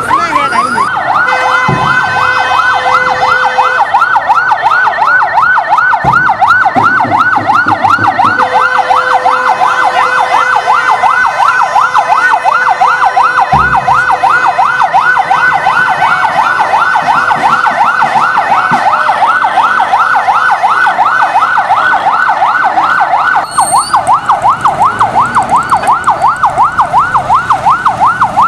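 Electronic vehicle siren on a yelp setting, its pitch sweeping rapidly up and down about five times a second, with a steady tone under it at times. A few low thumps sound through it.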